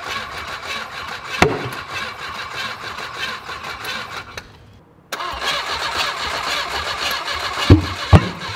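Volvo Penta AQ130C four-cylinder marine engine cranking on its starter without catching, in two attempts with a short break about halfway. A few loud sharp pops come through, one early and two near the end. After this the crew talk about pouring gas into the carburettor, which suggests it is short of fuel.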